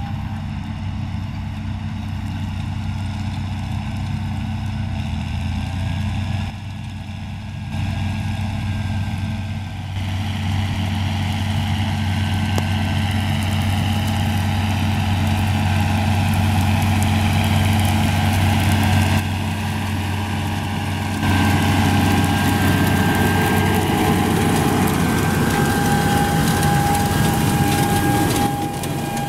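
John Deere 6920 tractor's six-cylinder diesel running steadily under load as it pulls a seed drill through the field, getting louder as it comes closer. A thin steady whine sits above the engine in the later part, and the sound jumps abruptly several times.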